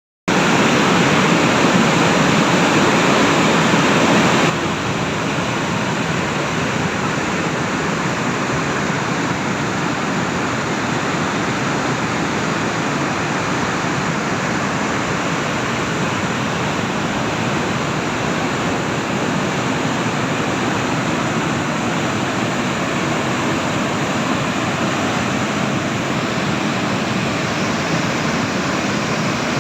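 Floodwater of a mountain stream in spate, rushing steadily. The level drops suddenly about four seconds in, then holds even.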